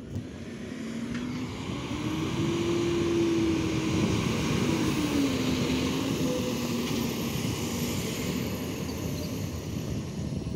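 Garbage truck's diesel engine driving past: it grows louder over the first few seconds, its engine note rises and then drops, and it fades slowly as the truck pulls away.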